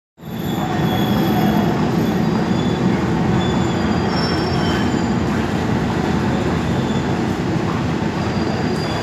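Passenger train running on the rails with a steady rumble of its wheels and cars, and brief faint high-pitched squeals of wheels or brakes scattered through it.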